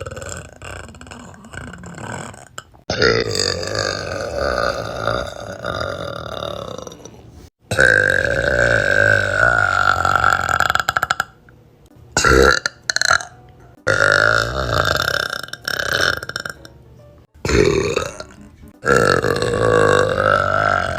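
A string of about seven long, drawn-out burps from girls, one after another. Most last two to four seconds, each with a wavering pitch, and each stops abruptly where the next begins; two shorter ones come just past the middle.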